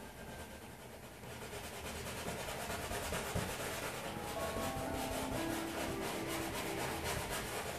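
Palette knife scraping and rubbing oil paint across a stretched canvas in quick repeated strokes, getting louder and busier after the first second or so.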